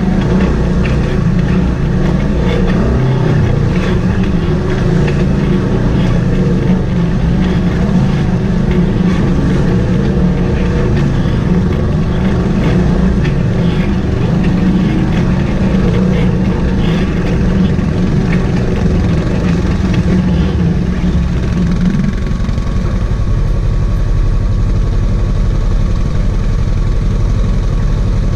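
Side-by-side UTV engine running at low speed as the vehicle crawls over rocks through a shallow creek. About 22 seconds in, the engine note changes to a steadier, even pulse.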